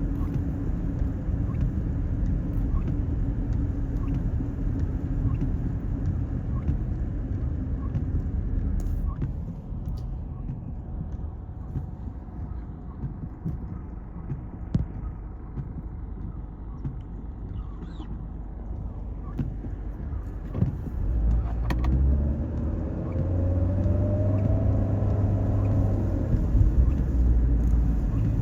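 Car interior road and engine rumble while driving. It eases to a quieter stretch mid-way, then builds again near the end as the engine pulls the car up to speed.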